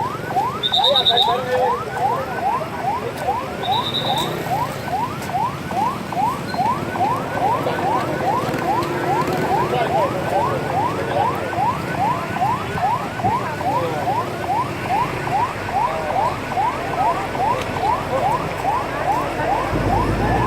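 Emergency vehicle siren in a fast yelp: rising sweeps repeating about twice a second. A low rumble comes in near the end.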